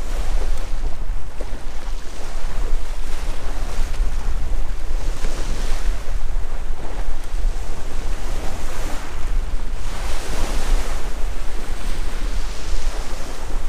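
Wind buffeting the microphone over the steady wash of sea waves on the shore, with the surf swelling louder about five and ten seconds in.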